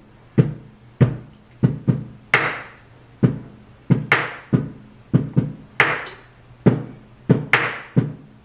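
Improvised drum beat tapped out with a knife and a sweet potato: a steady pattern of sharp knocks, with a longer hissing strike about every second and a half.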